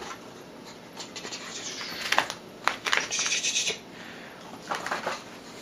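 A cat's paws and claws scrabbling and scratching on a rug as it chases a laser-pointer dot, in short irregular bursts.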